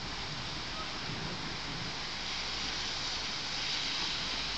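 Steady hiss of rain falling during a thunderstorm, growing slightly louder near the end.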